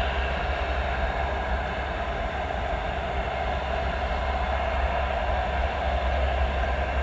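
P-3C Orion's four Allison T56 turboprop engines running steadily as the aircraft taxis, a continuous engine drone with a deep rumble underneath.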